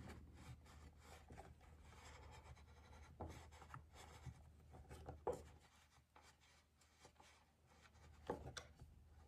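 Faint scratching of a wheel marking gauge's cutter scoring lines into walnut, with a few light clicks as the brass gauge is handled.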